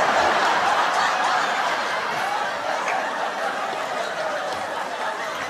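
A group of people laughing, loudest at first and slowly dying down.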